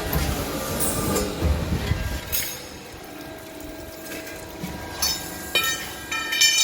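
PLC 355 automatic metal-cutting saw at work: a low rumble and grinding noise for the first couple of seconds, then several sharp metallic clanks with ringing, the loudest near the end.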